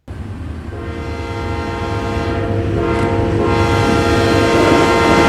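Diesel locomotive approaching with a low engine rumble and sounding one long blast on its multi-chime air horn, which starts about a second in and grows steadily louder.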